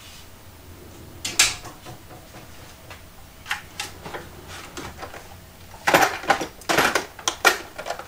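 Small metal tools clinking and rattling as they are rummaged through: one sharp clack about a second and a half in, a few light clicks in the middle, then a burst of rattling clinks near the end.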